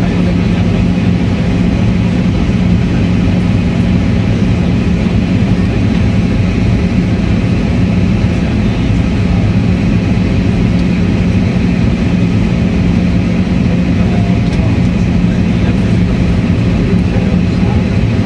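Cabin noise of an Airbus A320-family airliner on approach, heard inside the cabin by the window: a steady rush of engines and airflow over a constant low hum, with no change throughout.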